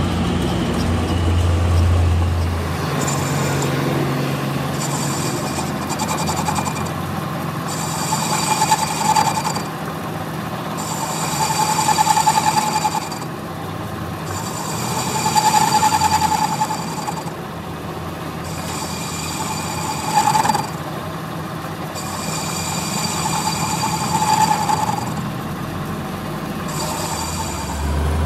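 Metal lathe running with its cutting tool cutting a steel part, a steady machine hum under a high whine that comes and goes every three to four seconds as the tool takes each pass.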